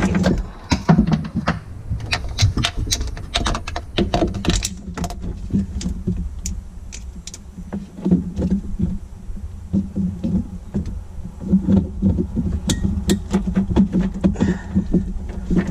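Hands working on hoses and fittings in a personal watercraft's engine bay: a string of sharp clicks, taps and light rattles of small metal and plastic parts, with handling rumble underneath.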